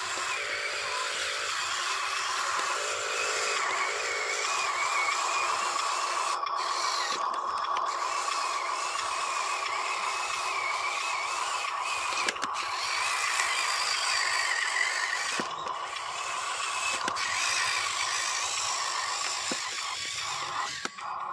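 Electric motor and gearbox of a Huina RC dump truck whining steadily as it drives over dirt, with a few small clicks.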